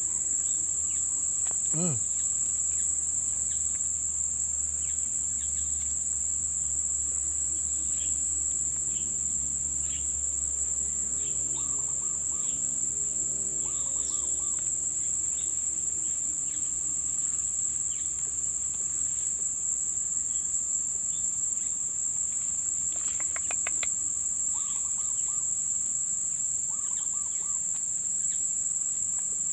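Crickets trilling: a continuous, high-pitched chirring that holds steady throughout. A few faint short bird chirps come through now and then.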